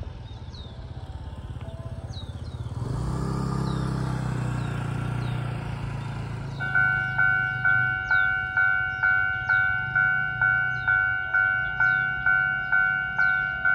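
A road vehicle passes with a rising, then fading engine rumble. About six and a half seconds in, the level crossing's warning bell starts ringing: an even, repeated electronic ding of about one and a half to two strikes a second, signalling that a train is approaching.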